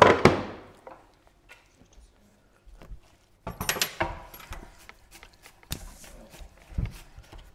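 Chef's knife tapping on a wooden cutting board as vegetables are cut, with louder wooden knocks right at the start and again around four seconds in, and a dull thump near the end.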